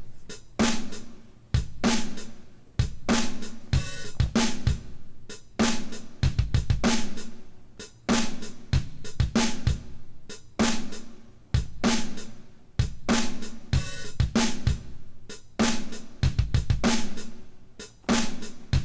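Background music: a drum-led track with a steady beat of kick drum, snare and cymbals.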